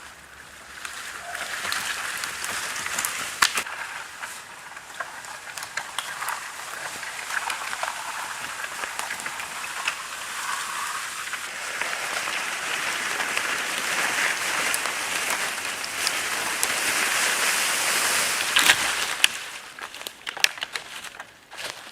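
Bratwursts sizzling in a hot pan, a steady hiss with small crackling pops, which grows louder and then drops away suddenly near the end.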